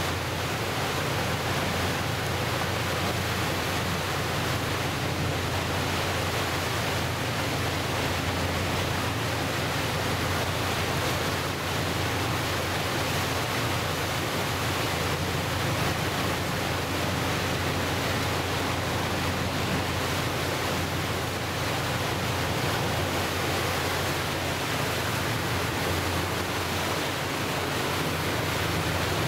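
Steady rushing of churned water from a passenger boat's wake and hull under way, with a low steady drone underneath.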